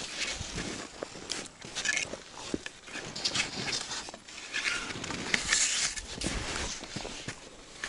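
Skis scraping and crunching over thin snow in irregular strokes.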